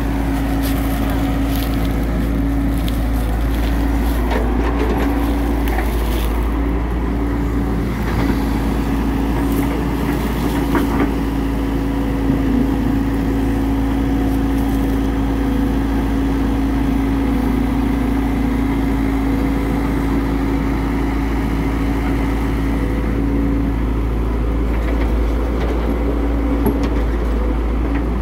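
Tracked excavator's diesel engine running steadily under load while digging and loading soil, a low rumble with a steady whine over it and a few knocks.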